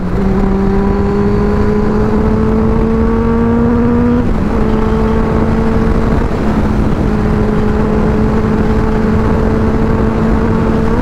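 Benelli motorcycle engine pulling at cruising speed, its note climbing slowly for about four seconds, then dipping slightly and holding steady, with wind rushing over the helmet microphone.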